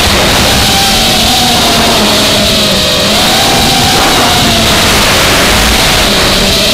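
FPV racing quadcopter's brushless motors and propellers whining loudly, heard from on board, the pitch rising and falling as the throttle changes, over a steady rush of prop and wind noise.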